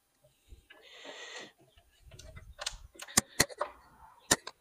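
Handling noise as a large cone air filter is worked into place on a car's intake pipe: a brief rustle about a second in, then a quick series of sharp clicks and taps as it knocks against parts in the engine bay.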